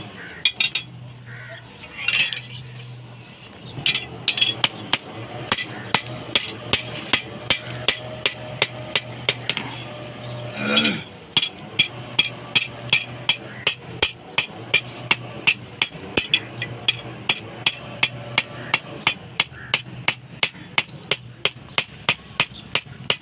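Blacksmith's hammer striking hot steel on an anvil in a steady rhythm of about three ringing blows a second, forging a fireplace-tong leg, with a short break about ten seconds in. A steady low hum runs underneath.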